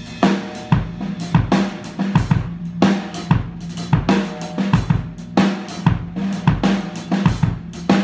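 Music driven by a drum kit: kick, snare and cymbals keep a steady beat over a low sustained bass line.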